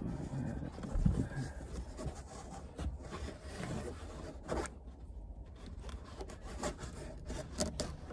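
Hands rubbing and scraping against the car's sun visor and headliner trim while fitting a hanging strap's mount, with scattered small clicks and taps.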